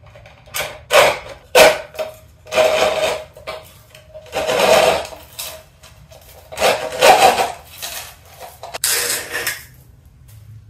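A PET water bottle crackling and scraping as it is turned on a hand-operated poly cutter and a plastic strip is pulled off through the blade, in about seven irregular bursts.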